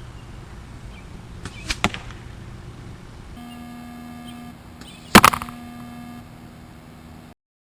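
Compound bow shooting an arrow fletched with 2-inch Bohning Blazer vanes: a sharp double crack a little under two seconds in, then a louder sharp crack about five seconds in.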